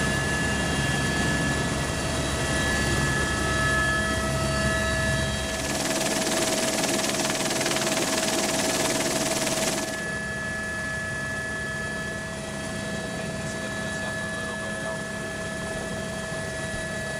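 Helicopter turbine and rotor running in flight, heard from inside the cabin: a steady whine of several held tones over a low rotor rumble. From about six to ten seconds in, a loud rush of wind noise on the microphone covers it, then the cabin sound returns a little quieter.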